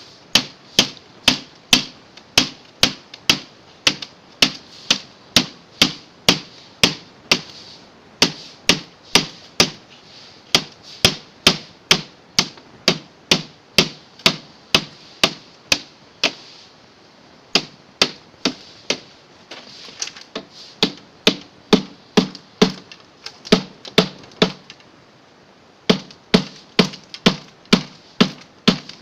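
Hammer blows striking a refrigerator as it is broken up for scrap, a steady rhythm of about two sharp strikes a second, pausing briefly twice.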